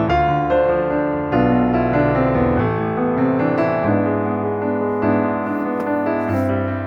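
Background piano music: a slow, gentle tune with sustained chords changing every second or so.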